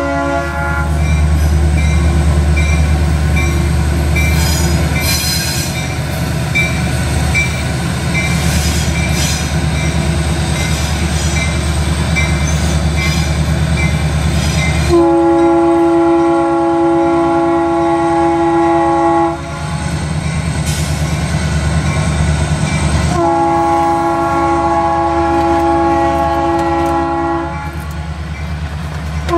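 Norfolk Southern freight train passing a grade crossing. The diesel engines of its EMD SD60M and SD60 locomotives rumble loudly past, with a steady ringing, likely the crossing bell. From about halfway through, the train horn sounds two long blasts of about four seconds each, a few seconds apart, and a third starts at the very end, while the freight cars roll by.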